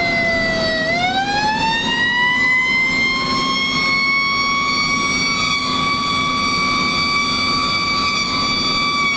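Fire engine siren: its pitch falls, rises again about a second in, then holds high and steady before starting to fall at the end. A steady low engine hum runs beneath it.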